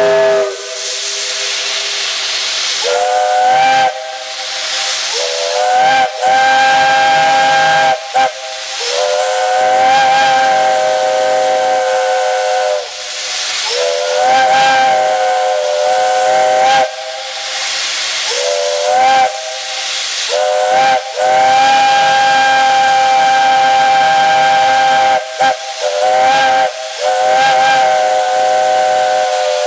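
Steam locomotive whistle blown in a series of about seven blasts of differing length, each sounding several notes together as a chord that swoops up slightly at its start; the longest blast is held for about four seconds. Steam hisses between the blasts, loudest near the beginning.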